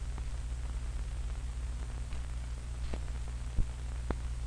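Background noise of an old 16mm film soundtrack: steady hiss and low hum, with scattered crackles and a louder pop about three and a half seconds in.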